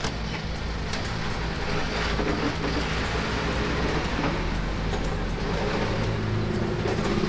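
Road traffic running past: a steady low rumble of car and bus engines, with a few faint knocks.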